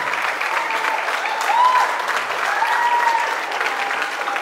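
Audience applauding steadily, with a few voices calling out over the clapping between about one and three seconds in.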